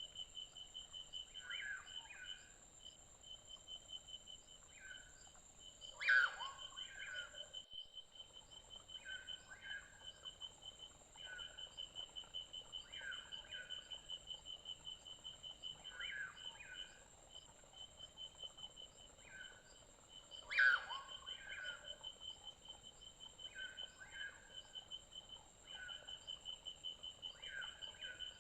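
Forest ambience of insects trilling steadily, one a fast pulsing trill and another a thin high steady tone. Over it come short chirping calls every second or two, and a louder falling call twice, about six seconds in and again about fifteen seconds later.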